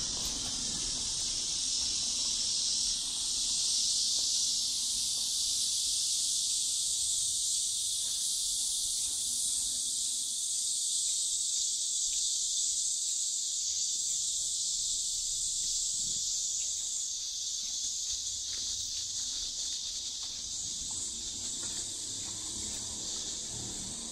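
Cicadas buzzing together in one steady, high-pitched drone that swells a few seconds in and eases slightly near the end.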